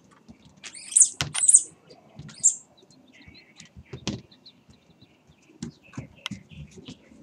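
Puppies playing on a tile floor: claws clicking and scrabbling, with scattered knocks. Three short, loud, high-pitched squeaks come about one to two and a half seconds in.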